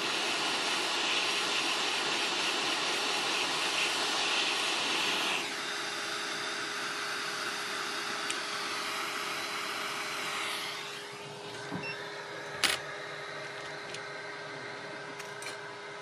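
Hot air rework station blowing hard at about 450 °C and 80% airflow, a steady hissing rush, to melt the solder holding a motherboard shield. It drops in level about five seconds in and dies away around ten seconds, leaving a steady low hum. A single sharp click near the end.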